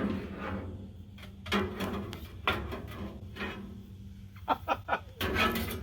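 Smoker parts knocking and clattering as they are handled and fitted during assembly, with a quick run of rattling clicks about four and a half seconds in.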